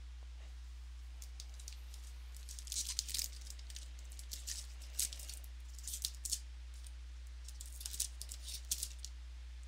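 Trading cards and their packaging being handled: irregular short crinkles and clicks of card stock sliding, flicking and rustling, in small clusters, over a steady low electrical hum.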